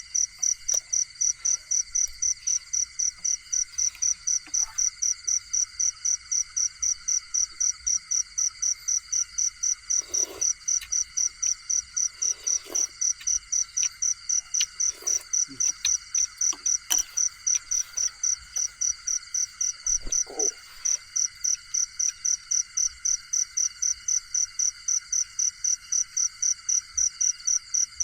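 Insects at night: a loud cricket chirping evenly about three times a second over a steady chorus of other insect trills, with a few faint low calls in the middle.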